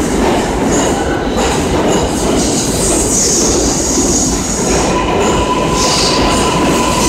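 New York City Subway R143 train running along the platform, a loud, steady rumble and clatter of steel wheels on the rails. A steady high tone joins in about five seconds in.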